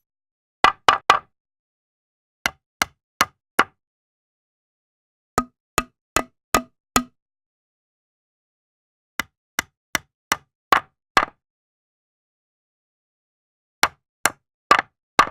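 Short, sharp knocks in quick runs of three to six strokes, about two or three a second, with dead silence between the runs.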